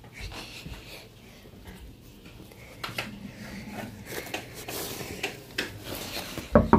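Handling noise from a phone being carried and moved: scattered rustles and small knocks of fabric and fingers against the phone, with a louder bump near the end.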